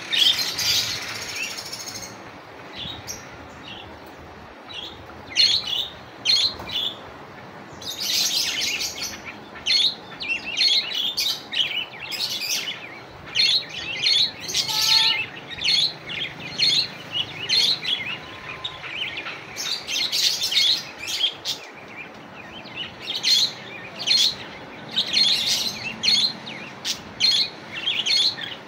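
Budgerigars chirping: runs of short, high chirps repeated in quick clusters with brief pauses between them, a parakeet's calling to a rival.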